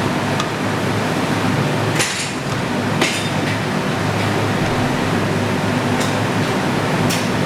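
Metal clinks from a leg press machine's weight stack as the footplate is worked through reps: a few sharp clinks about two, three and seven seconds in, over a steady low hum of gym ventilation.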